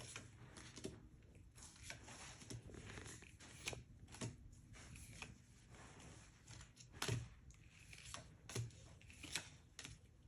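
Faint rustling and light clicks of Pokémon trading cards being handled and slid through the hands, with a few sharper ticks here and there.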